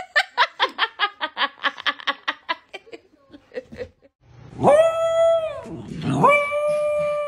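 A person laughing in quick, even bursts for about three seconds. Then, after a short pause, a dachshund holding a ball in its mouth gives two long, drawn-out whining howls, each held on one pitch before it drops away.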